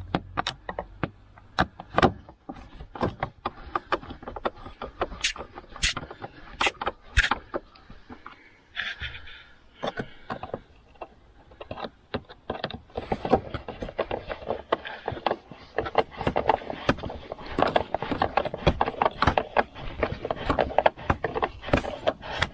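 Screws being started and driven into the plastic air filter box of a 2018 Chevrolet Colorado, heard as irregular clicks and knocks of tool and plastic. The clicking is scattered at first and becomes dense and nearly continuous over the second half.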